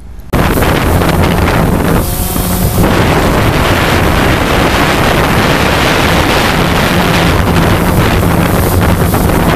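Quadcopter drone's propellers buzzing loudly and steadily, with wind noise buffeting its on-board microphone; the sound cuts in suddenly at the very start.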